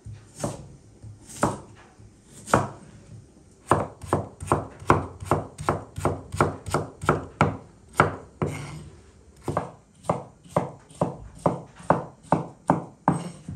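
Kitchen knife chopping peeled raw potatoes against a wooden cutting board. A few spaced knocks, then from about four seconds in a quick even run of about four knocks a second, broken by a short pause in the middle.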